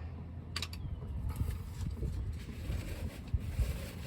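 Wind rumbling on the microphone, with a sharp metallic click about half a second in and a few fainter knocks.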